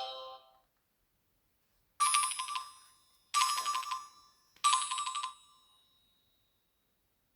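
Nokia C5-03 mobile phone ringtone: a short, bright electronic phrase of rapid pulsing notes, sounded three times with gaps of about a second. The tail of another tone fades out just at the start.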